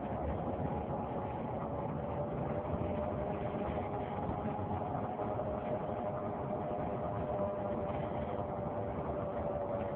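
Steady whine over road noise from a 2003 Saturn Vue on the move, its pitch sinking slightly in the second half. It is the loud noise from the front driver-side wheel area that follows wheel speed, which a new hub has not cured.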